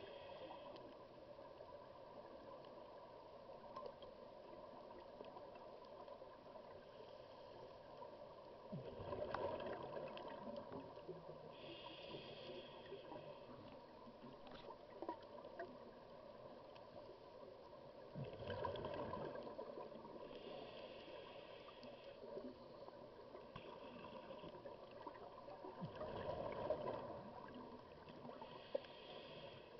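Scuba regulator breathing underwater: three bubbly exhalations about eight seconds apart, with hissing inhalations between them, over a faint steady hum.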